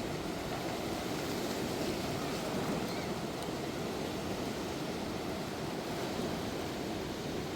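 A rain-swollen river in flood, its water rushing in a steady, unbroken roar.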